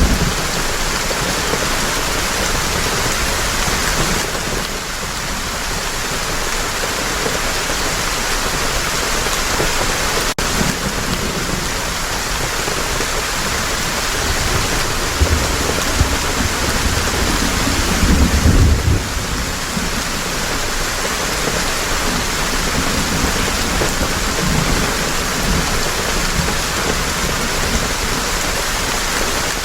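Heavy rain pouring in a steady dense hiss, with low rumbles of thunder swelling about fifteen and eighteen seconds in. About ten seconds in there is a split-second dropout.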